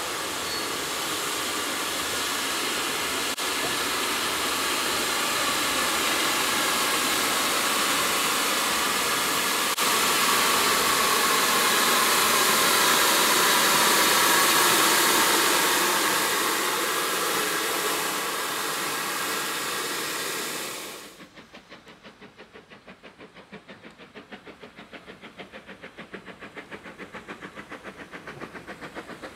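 Steam locomotive No. 4 'Loch', an 1874 Beyer Peacock tank engine, blowing off steam with a loud, steady hiss that cuts off abruptly about 21 seconds in. After that, quieter, evenly spaced exhaust beats of the locomotive working, getting louder near the end.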